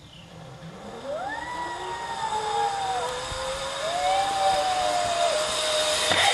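Zipline trolley pulley running down the steel cable, a whine that climbs steadily in pitch and grows louder as the rider speeds up and approaches. Two long wavering higher tones sound over it, and a noisy clatter comes near the end as the rider is caught at the bottom.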